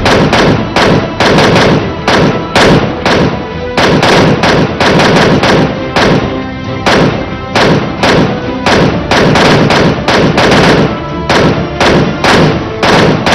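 Irregular run of handgun shots from several shooters firing together, about two to three a second, over background music with held tones.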